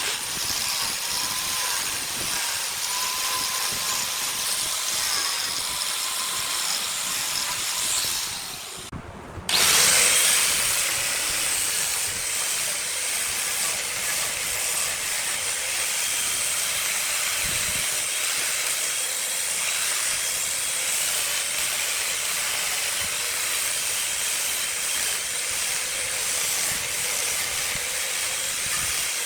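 Wood lathe spinning a jackfruit-wood workpiece with a tool held against it, a steady hiss. About nine seconds in the sound drops away for about a second, then comes back suddenly louder and runs on steadily.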